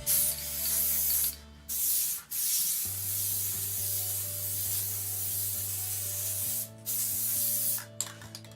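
Aerosol can of Liquid Wrench dry lubricant spraying in several hissing bursts with short breaks between them, the longest about four seconds. It is being sprayed onto a freshly sanded cast iron table saw top.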